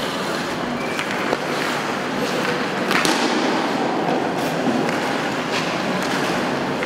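Ice hockey play: skate blades scraping across the ice under several sharp clacks of sticks and puck, over a murmur of voices.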